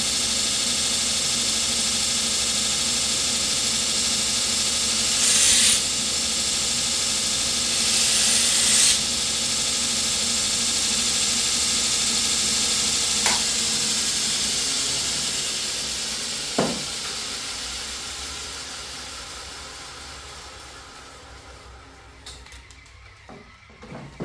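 An electric grinder running steadily, with two short harsher bursts as the steel blade is pressed against it, then winding down slowly until it stops.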